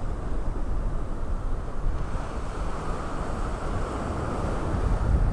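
Surf breaking and washing up the beach, with breezy wind buffeting the microphone as a low rumble; the wash swells to a hiss in the middle.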